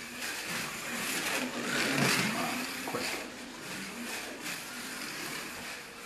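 A slot car (Fly Porsche 911 chassis with an Avant motor) lapping a slot track: its small electric motor whines, rising and falling in pitch through the corners, loudest about two seconds in as it passes close.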